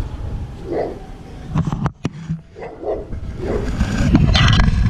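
A dog barking several times in short separate barks, over a low rumble. A louder rushing noise builds near the end.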